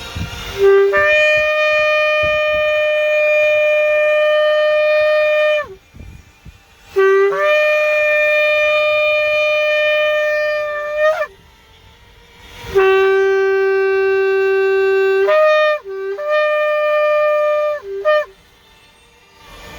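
Shofar blown in four long blasts, each opening on a low note and breaking up to a higher one that is held. The third blast holds the low note for a couple of seconds before leaping up.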